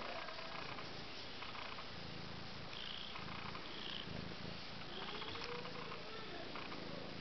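Cat purring: a steady low rumble that swells and fades in regular pulses.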